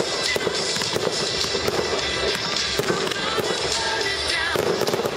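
Fireworks display: a rapid run of bangs and crackling from bursting aerial shells, with music playing underneath.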